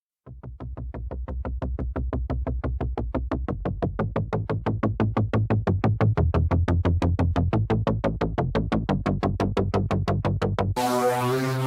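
Electronic background music: a synthesizer pulsing in even repeated notes, about five a second, over a bass line, fading in at the start and swelling gradually. About a second before the end it changes to held, sustained chords.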